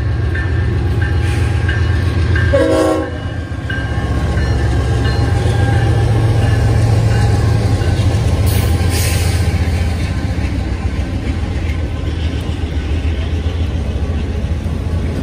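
Freight train passing with a steady, loud low rumble from the locomotives and cars on the rails. A short chord-like tonal blast, likely a horn toot, comes about three seconds in, and a brief hiss follows a few seconds later.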